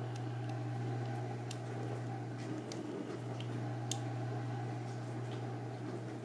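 A steady low hum, with a few faint clicks as a thin tool picks at the ribbon-cable connector and tape on the back of a laptop LCD panel.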